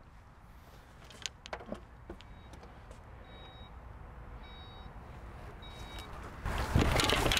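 Porsche Cayenne Coupe's power tailgate opening: faint clicks and a quietly rising mechanism sound, with a few short high beeps. About six and a half seconds in, a much louder rustle and clatter as a golf bag of clubs is set into the cargo area.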